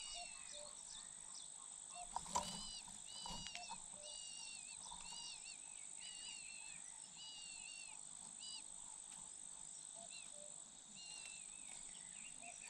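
Small birds chirping quietly and repeatedly at a nest where a cuckoo chick is being fed, several short high calls a second, over a steady high whine. A few brief knocks come about two to three seconds in.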